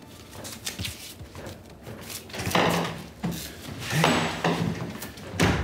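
A door being opened and shut with footsteps in a small room: a few short, noisy knocks and scuffs, the sharpest one just before the end.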